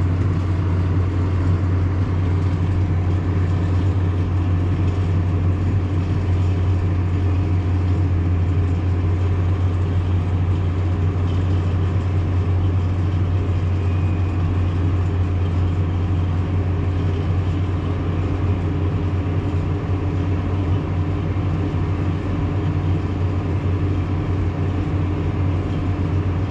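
Tractor engine and sugar-beet harvester machinery running steadily: a constant low drone, heard from inside the tractor cab.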